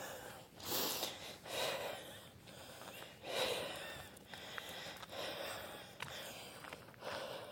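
Heavy breathing of a hiker walking a gravel trail, a short rush of air about once a second, with footsteps on gravel.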